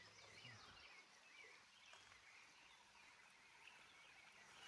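Faint birds chirping in short, repeated high notes over near silence.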